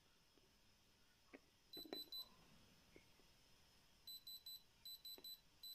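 Handheld electronic diamond tester beeping in quick sets of three short high beeps: one set about two seconds in, then set after set from about four seconds on. This is the tester's signal that the probe is touching a stone that reads as diamond. A few faint taps come in between.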